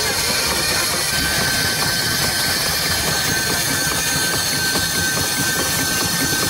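Steam wagon standing in steam: a steady hiss over a low mechanical rumble, with a thin, steady high-pitched tone joining in about a second in.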